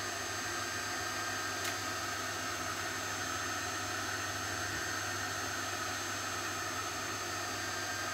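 Steady background hum and hiss with a few constant tones, like a running fan or electrical noise. One faint click comes about one and a half seconds in.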